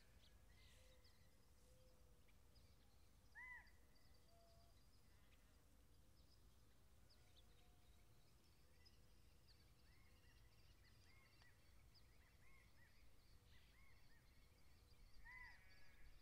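Near silence of an open pasture: a faint low rumble with scattered faint bird calls, one short louder call about three and a half seconds in and a run of small chirps toward the end.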